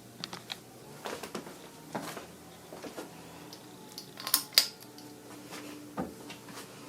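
Scattered light clicks and taps over a faint steady hum, with two sharp clicks in quick succession about four seconds in.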